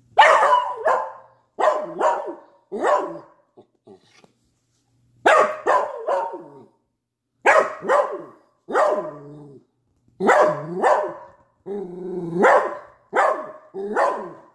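Dachshund barking over and over in quick bursts of two or three, a few barks drawn out and whiny: demand barking for attention.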